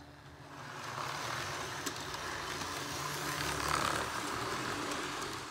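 Model railway train running past close by: its wheels rumble on the track over a steady motor hum, building to its loudest about three to four seconds in, then stopping abruptly near the end.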